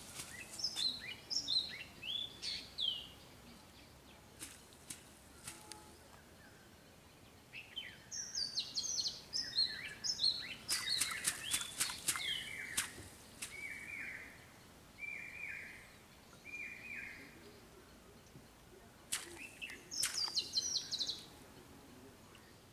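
Small birds calling in bursts of quick, high chirps that slide down in pitch. In the middle comes a run of four short, lower notes, evenly spaced.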